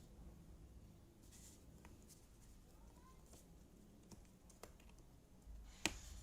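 Faint handling of cardboard jigsaw puzzle pieces: soft rustles and scattered light clicks, with one sharp click just before the end.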